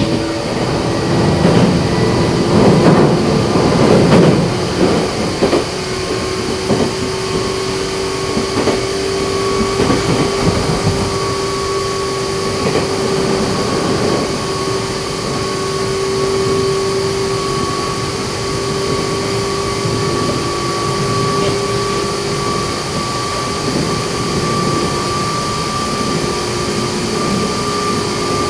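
Meitetsu 6000 series resistance-controlled electric train running at speed, its traction motors giving a steady two-tone whine that rises very slowly in pitch over the rumble of the wheels on the rails. For the first few seconds a louder rattling clatter of the wheels rides over it.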